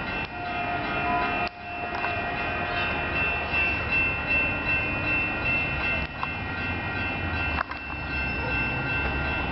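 Caltrain passenger train passing through the station: a steady rumble with a thin, steady high whine above it, the low rumble growing stronger near the end.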